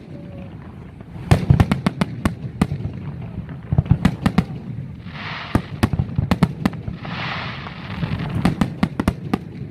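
Fireworks display: aerial shells bursting in rapid clusters of sharp bangs, with two short rushing hisses in the middle.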